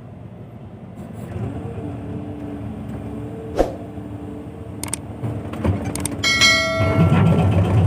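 Backhoe's diesel engine running, with a couple of sharp clicks and a metallic clank that rings briefly about six seconds in; the engine grows louder near the end.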